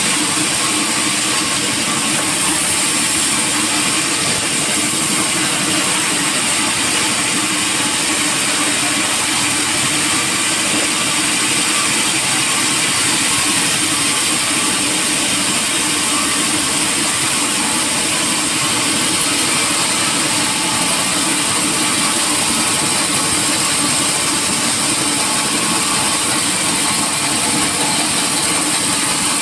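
Sawmill machinery running steadily: a loud, even mechanical noise with a constant high whine and no breaks.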